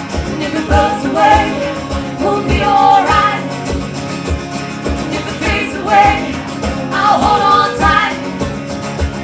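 Live song: female voices singing with guitar over a steady low beat, about two beats a second.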